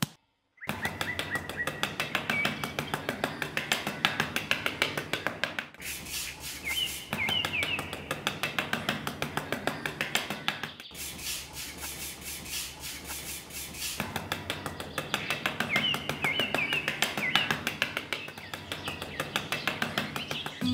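A small metal trowel scraping across sand in quick, even strokes, several a second, smoothing the ground. Birds chirp now and then behind it.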